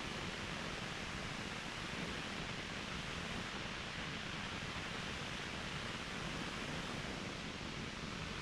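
Waterfall: falling water making a steady, unbroken rushing noise.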